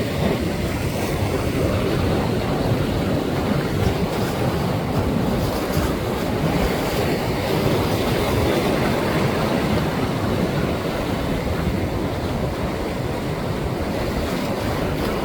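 Ocean surf washing steadily, with wind buffeting the microphone as a low rumble.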